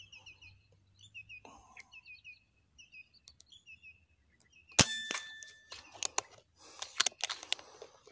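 Birds chirping in short, high, repeated notes, then about five seconds in a spring-piston air rifle shot: a sharp crack followed by a ringing ping lasting about a second, then a few more clicks and rustling.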